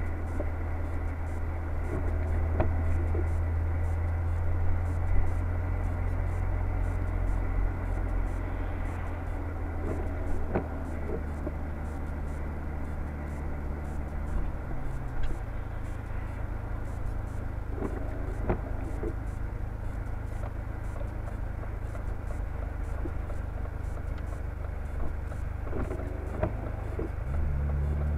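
Car engine and road noise from inside the cabin, picked up by a dashcam's built-in microphone: a steady low drone. The engine note drops about halfway through and climbs again near the end, with a few light knocks along the way.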